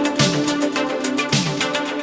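Background electronic music with a steady beat and a repeating falling bass figure.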